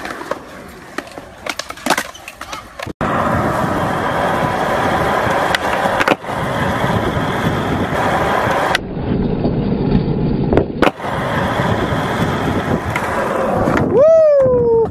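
Skateboard wheels rolling on concrete with a steady rolling noise, after a few sharp clicks and knocks of the board in the first few seconds. Near the end a man yells once, his voice shooting up and then sliding down.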